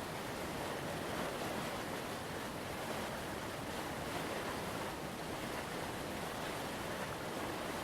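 Waterfall on the Okere River: a steady, even rush of falling water.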